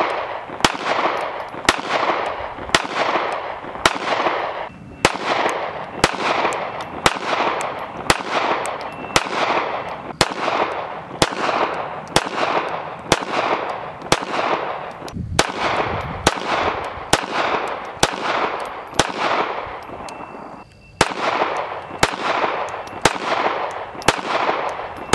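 Strings of .380 ACP pistol shots fired from small double-stack handguns, close to two shots a second, each crack followed by a short decaying echo, with a few brief pauses between strings.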